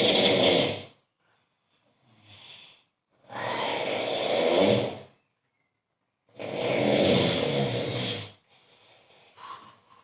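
A sleeping man snoring very loudly: three long, rattling snores about three seconds apart, the first already under way at the start, with softer breaths between them.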